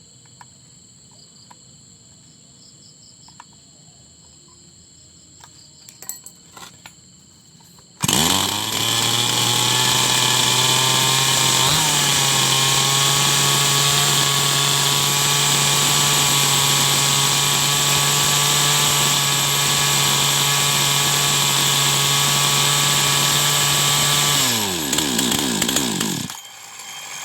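Small petrol engine being test-run on a cheap new carburetor: it catches suddenly about eight seconds in and runs loud and steady at a fast, even speed. Near the end its pitch falls as it winds down and stops.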